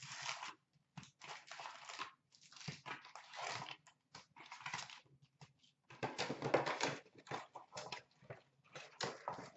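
Cardboard hobby box torn open and foil hockey card packs rustling and crinkling as they are lifted out and stacked, in short irregular bursts.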